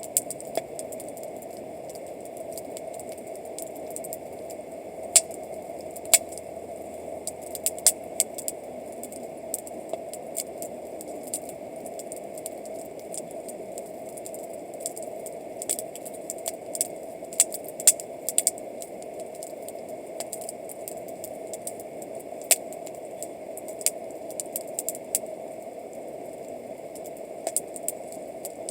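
Wood campfire crackling, with irregular sharp snaps and pops, a few much louder than the rest, over a steady background rush.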